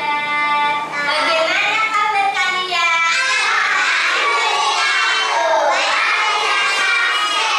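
Young children singing a song together, loud and unbroken, with held notes.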